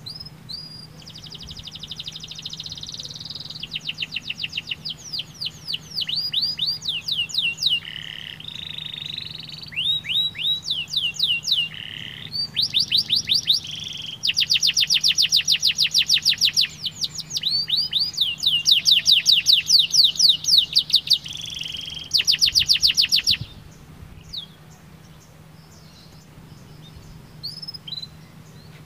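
Domestic canary singing a long song of fast trills: rapidly repeated, downward-sweeping high notes whose speed changes from phrase to phrase, loudest in the middle. The song stops abruptly about 23 seconds in, leaving only a few soft chirps.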